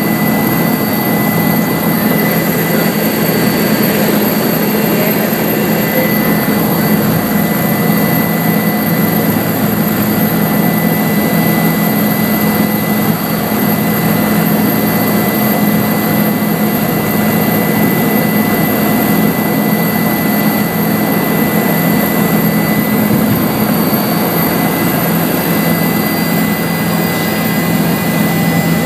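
Helicopter turbine engine and rotor running steadily on the pad: a constant high turbine whine over a loud, even rotor-and-engine drone.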